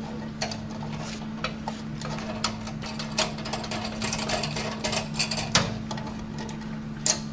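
Irregular metal clicks and clinks as a bench-type valve spring compressor is eased off a valve on a cylinder head and the valve spring and its collets are handled. A steady low hum runs underneath.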